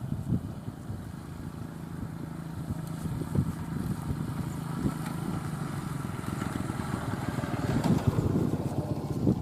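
Passenger train running past at speed, its wheels clattering over the rail joints, with a steady low hum underneath.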